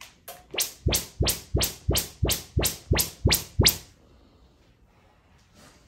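Audyssey auto-calibration test tones played through the Jamo home theater speakers: a rapid run of eleven short sweeping chirps, about three a second, the first two quieter. This is the receiver measuring the speakers through its setup microphone.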